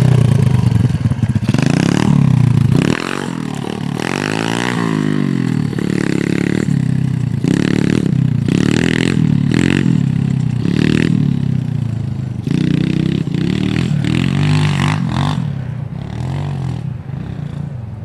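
Engine of a 107cc Honda-clone minibike, a single-cylinder four-stroke, being ridden hard. It revs up and drops back again and again as the rider works the throttle and gears. The engine is loud and close at first, falls off about three seconds in as the bike pulls away, and fades near the end.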